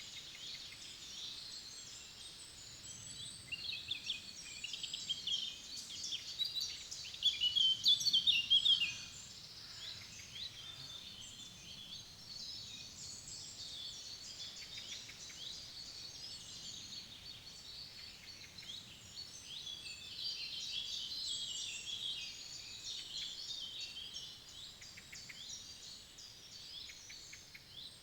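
Many songbirds singing and chirping at once, overlapping high trills and calls, loudest between about four and nine seconds in.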